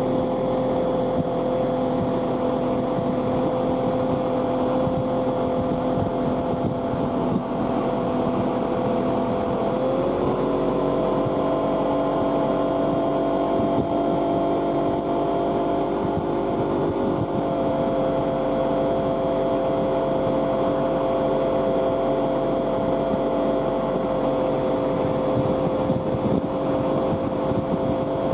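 Outboard motor running steadily at planing speed while towing riders, with the rush of the wake and spray beneath it. The engine note steps up slightly about ten seconds in and eases back a few seconds later.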